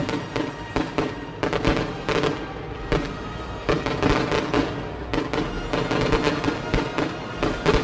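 Fireworks going off in quick, irregular succession, many sharp bangs close together, over background music.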